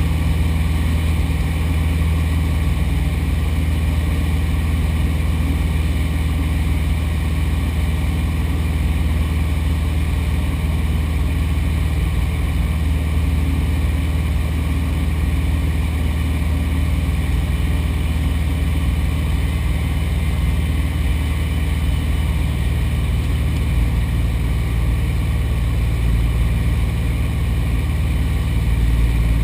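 Light aircraft's piston engine and propeller running with a steady, unchanging drone.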